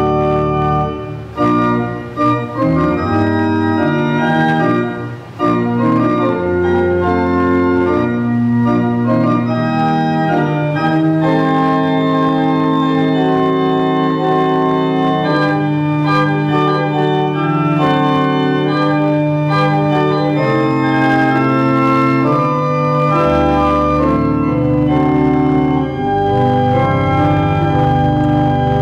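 Church organ playing slow music in held chords that change every second or so over a sustained bass line.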